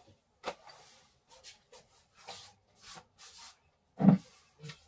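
Rustling and rubbing of clothing and gear being handled, a series of short scrapes, with one dull knock about four seconds in.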